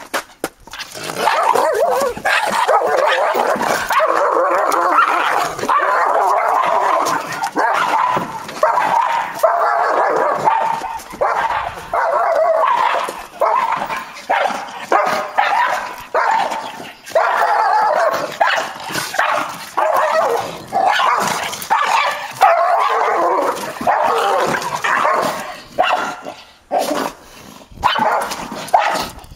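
Dogs barking, yipping and whining almost without pause as a German Shepherd and a small red dog scuffle by a parked car; the noise thins briefly a few seconds before the end.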